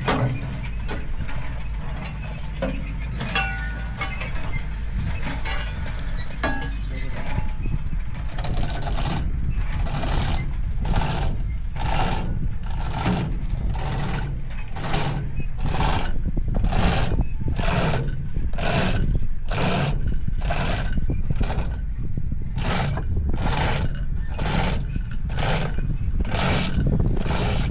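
Rhythmic scraping or rasping strokes, a little over one a second, start about a third of the way in. A steady low rumble runs underneath throughout.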